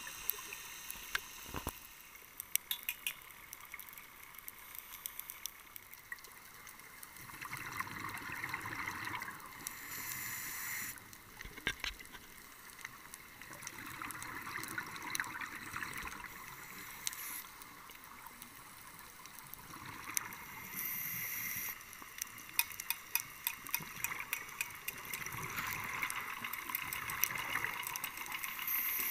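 Underwater sound heard through a camera housing: a scuba diver's exhaled bubbles rush from the regulator in several long bursts. Scattered sharp clicks and crackles run underneath.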